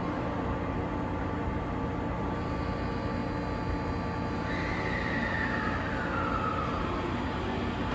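IR Ishikawa Railway 521 series electric multiple unit standing at a platform, its onboard equipment giving a steady hum and rumble. About four and a half seconds in, a high whine glides downward for about two seconds.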